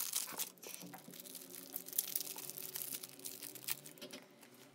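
Thin plastic pen bag crinkling and rustling as a pen is handled and taken out of its packaging, with scattered small clicks; loudest in the first second.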